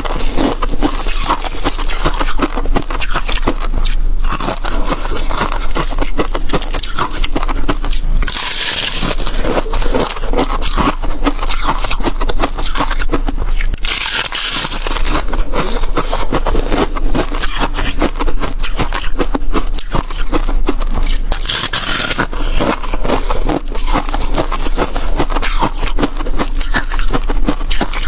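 Close-miked crunching of flaky freezer-frost ice, a dense run of crackles and crunches.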